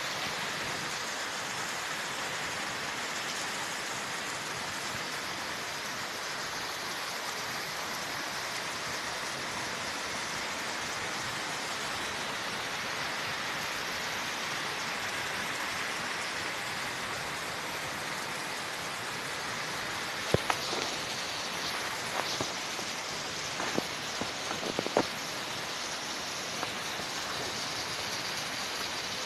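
Heavy rain falling steadily on leaves and ground, with runoff water pouring from a roof edge and splashing onto the ground. A few sharp taps stand out in the later part.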